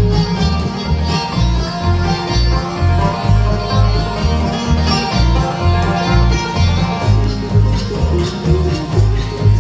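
Bluegrass band playing an instrumental break, banjo rolling over guitar with a steady bass beat.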